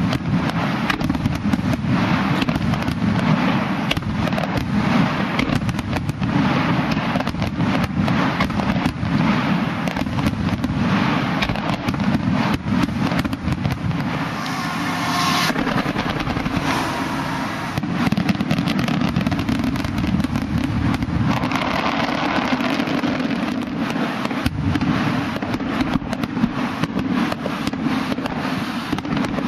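Aerial fireworks shells bursting in quick succession, a near-continuous barrage of booms and crackles with no pause.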